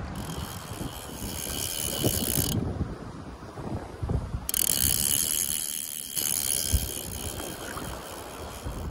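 LOOP Classic fly reel's ratchet buzzing as a hooked salmon pulls line off against the drag, in two runs: one about two and a half seconds long at the start, and a second of about two seconds a little past the middle.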